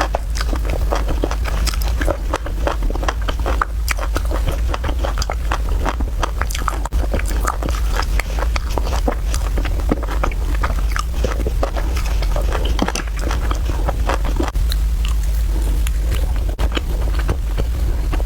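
Close-miked chewing and biting of spicy fried rice noodles: a dense, continuous run of short mouth clicks and smacks over a steady low hum.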